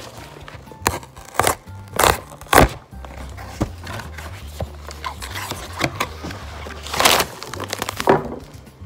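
Cardboard box flaps and plastic packets rustling and knocking while a fudge kit is unpacked, in a string of sharp handling sounds, over background music with a steady bass line.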